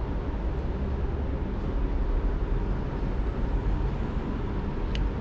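Steady low rumble of background noise, with one sharp click near the end as wire connectors are handled.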